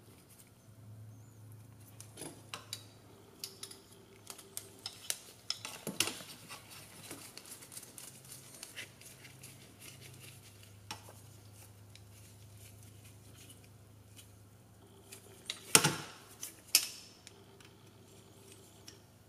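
Small metal screws, standoffs and a hex driver clicking and tapping against the frame plates as screws are driven in during drone-frame assembly. The taps are scattered, with a louder cluster of knocks about three-quarters of the way through.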